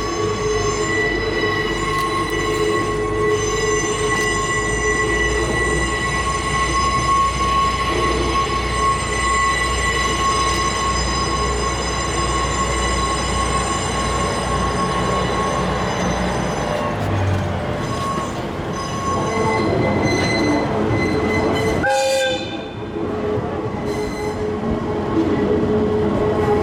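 A slow freight train with a diesel locomotive and a heavy well car rolls past with a steady, high-pitched squeal from its wheels on the rails. Under it a low rumble drops away about two-thirds of the way through.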